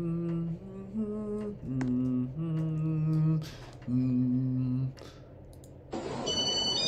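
A man singing a slow tune without words, in held notes of about half a second to a second each, stopping about five seconds in. Near the end a hiss with several high steady tones comes in.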